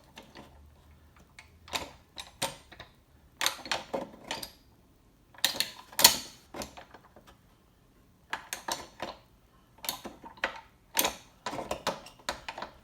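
Stuckey hole straightening pliers clicking and clacking against the sheet metal of a car hood as a bent hole is squeezed straight: bursts of sharp metallic clicks with short pauses, the loudest about six seconds in.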